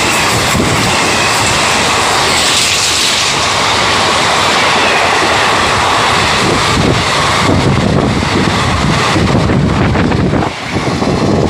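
Express train coaches rushing past at about 114 km/h: a loud, continuous rush of wheels on rail and displaced air. A rapid, rhythmic clatter of wheels over the rails builds in the second half.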